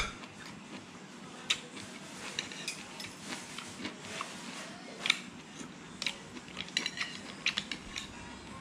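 Spoon and fork clinking and scraping against a plate while eating, in scattered sharp clicks that come more often in the second half.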